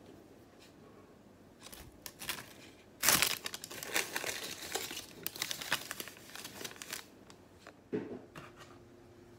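Cloth and paper rustling and crinkling as a cotton cloth is spread and tucked over a loaf of bread set on paper sheets: a few soft rustles, then a busy stretch of rustling in the middle, and a short knock near the end.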